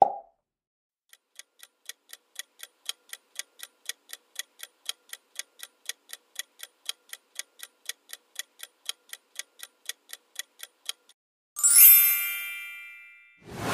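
Countdown-timer sound effect: a clock ticking steadily, about four ticks a second, for some ten seconds, then a bright chime that rings out and fades, marking time up and the answer reveal.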